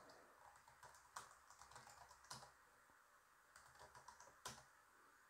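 Faint computer keyboard typing: scattered single keystrokes at irregular gaps, with a sharper keypress about four and a half seconds in.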